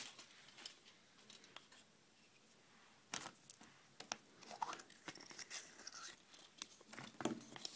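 Handling of a chocolate surprise egg's plastic toy capsule: faint sharp clicks and scratchy crinkling that start about three seconds in, as the capsule is pried open and the foil-wrapped toy inside is handled.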